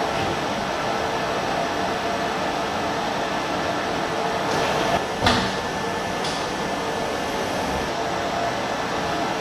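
Industrial laundry machinery running with a steady hum. About five seconds in there is a short hiss, then a single sharp clunk, then another brief hiss.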